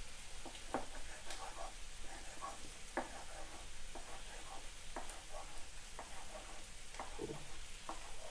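Large kitchen knife chopping mushrooms on a wooden cutting board: irregular knocks of the blade against the board, about one or two a second, with lighter taps in between.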